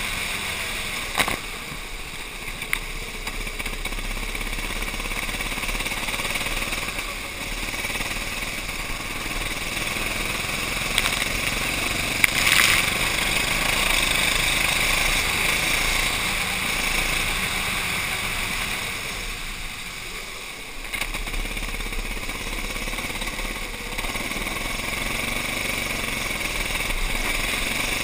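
Racing kart's engine running under throttle, heard from a camera mounted on the kart, with a hiss of spray off the wet track. The engine drops back around twenty seconds in, then picks up again; a few sharp knocks, the loudest about twelve seconds in.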